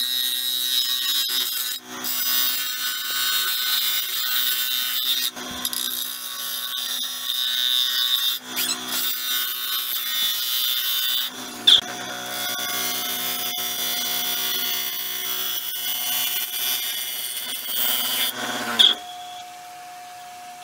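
A turning tool cutting the inside of a cedar and blue epoxy-resin bowl spinning on a wood lathe: a rough, steady scraping over the hum of the lathe motor, in wood the turner finds very hard. The cut stops and starts several times, with two sharp clicks, and near the end the lathe runs on alone.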